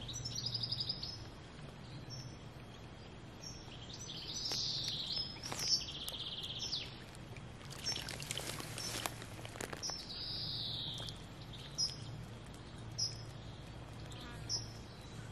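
Small birds chirping and calling, short high notes scattered throughout, over a faint steady low hum, with a brief burst of noise about eight seconds in.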